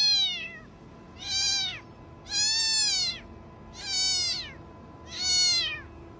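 A black cat meowing five times, about one call every second and a half. Each meow is short and high-pitched and falls in pitch at its end.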